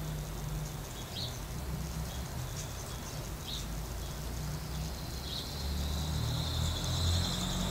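Quiet outdoor ambience coming in through an open door: a steady low rumble, a few faint high chirps, and near the end a steady high trill of insects.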